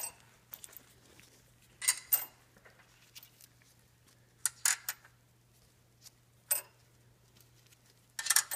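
Small steel washers and nuts clinking as they are picked from a gloved palm and dropped onto the studs of a caster/camber plate: a few scattered short metallic clicks, a cluster of them near the end, over a faint steady low hum.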